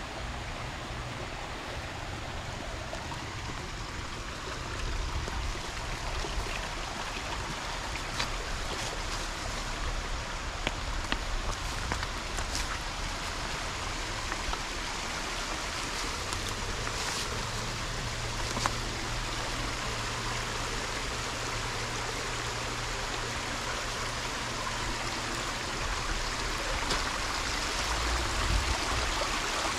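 Shallow rocky creek running steadily over stones, a rushing and trickling wash that grows a little louder near the end. A few light clicks sound over it.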